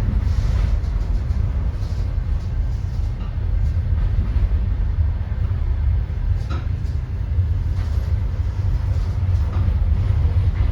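Passenger train running: a steady low rumble with a few faint knocks.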